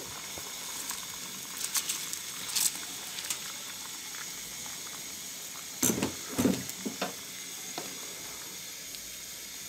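Chicken stock at a rolling boil, a steady bubbling hiss, as basmati rice is tipped in from a bowl. A few short knocks and scrapes of a spatula against the pan, the loudest around six to seven seconds in.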